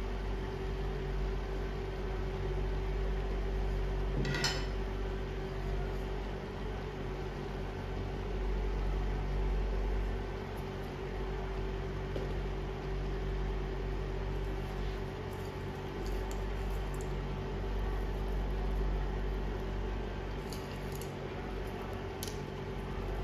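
Steady hum of an induction cooktop running, with one short tap of a spatula on the pan about four seconds in and a few faint clicks in the second half.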